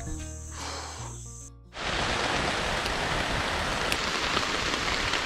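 Background music fading out, then a sudden cut, about two seconds in, to a steady hiss of drizzle and wind in the forest.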